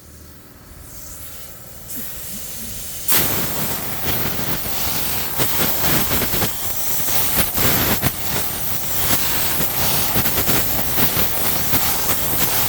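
High-pressure jet blasting dirt off a small excavator's final drive hub: a loud, steady hiss that starts about three seconds in and keeps going with slight flutters.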